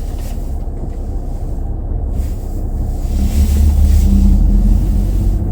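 Car engine running with a steady low rumble and road or cabin noise, growing louder about three seconds in.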